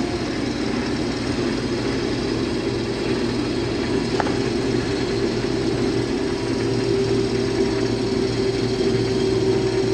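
Case IH combine harvester running steadily while cutting wheat: an even engine and machinery drone with a constant mid-pitched hum.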